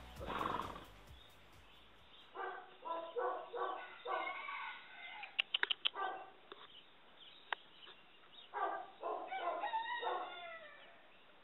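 Animal calls in short repeated bursts, in three groups, the last ending in a falling call. Between them comes a quick run of sharp clicks.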